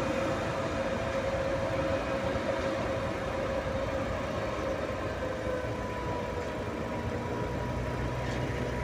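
Freight train of tank wagons rolling slowly along the track behind a class 220 diesel locomotive, a steady rumble of wheels and engine. A thin high tone runs through it and rises in pitch about six seconds in.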